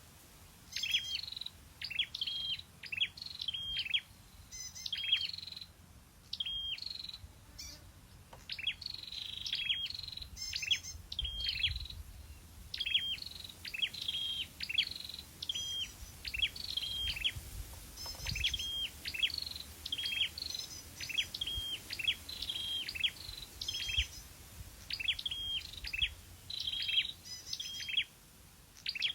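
Scarlet-backed flowerpecker singing: short, high-pitched chirping phrases of a few quick notes, repeated about once a second.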